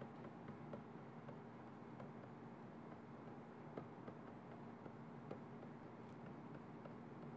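Near silence: a faint steady hum with scattered soft clicks of a stylus tapping and sliding on a tablet screen during handwriting.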